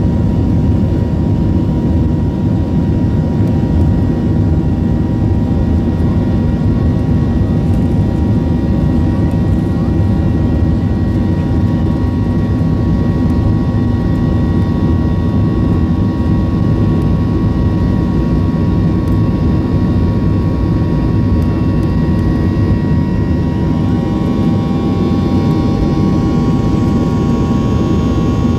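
Boeing 737-800's CFM56-7B turbofan at take-off thrust during the take-off roll, heard from inside the cabin beside the engine: a loud, steady rumble with steady whining fan tones. A higher hiss builds over the last few seconds as the aircraft gathers speed.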